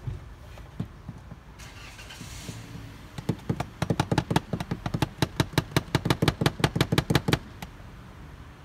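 Rapid hammering, about five even strikes a second, starting about three seconds in and stopping about seven seconds in, as a nail is driven at the roof eave. A short scraping hiss comes about two seconds in.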